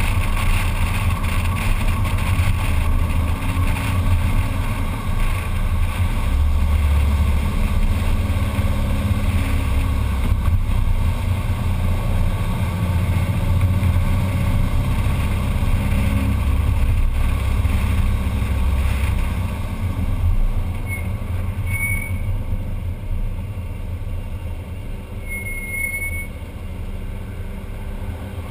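VW Type 2 bay-window bus's air-cooled flat-four engine running on the move, with wind and road noise on the microphone. Near the end it goes quieter as the bus slows, and the brakes give two short squeals.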